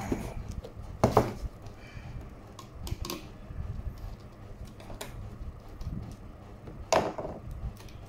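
Clicks and knocks of computer parts being handled and set down on a hard tabletop, with two louder knocks about a second in and near the end.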